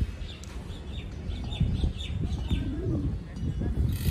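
A small bird chirping in a quick run of short, downward-sliding calls, about eight of them, over a steady low rumble.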